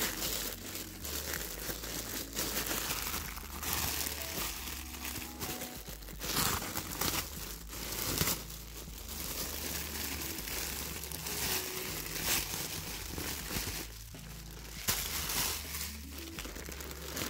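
Clear plastic bags crinkling and rustling as they are handled and opened by hand, a dense run of sharp crackles.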